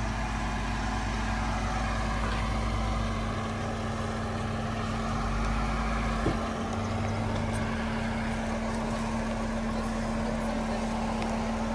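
Jeep Wrangler engine running steadily at low revs while the vehicle crawls slowly over rocks, with a single short knock about six seconds in.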